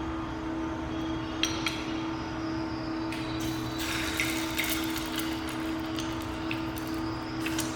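Small clicks and light metallic taps from handling an aluminium soda can used as a frying pan, over a steady hum, with a short hiss a little past three seconds in.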